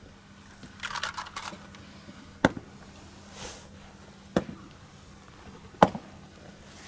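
Rifle drill by a formation of fighters: a brief clatter of rifles being brought up across their chests, then three single sharp clacks a second or two apart.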